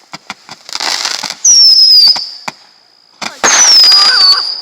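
Fireworks going off: scattered sharp crackling pops, a hissing rush about a second in, and two loud whistles that each drop slightly in pitch, the first at about a second and a half and the second, longer one at about three and a half seconds.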